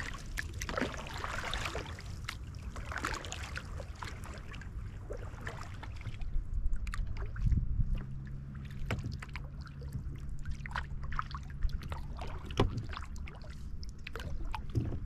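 Kayak paddle strokes in calm water: blades dipping and pulling, with drips and small splashes.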